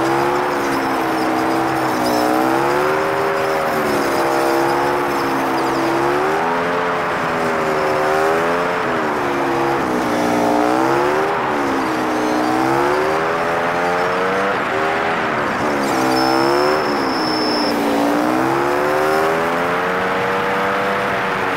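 Motorcycle engine and riding noise played at five times speed, so the engine note is pitched up high and swoops up and down every second or two as the bike works through the curves.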